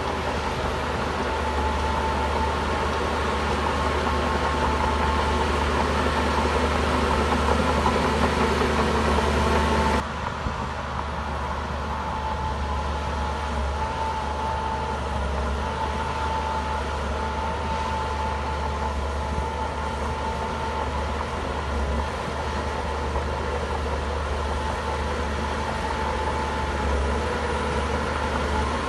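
Heavy diesel bulldozer engine running steadily, with a high whine that comes and goes. The sound shifts abruptly and drops a little in level about ten seconds in.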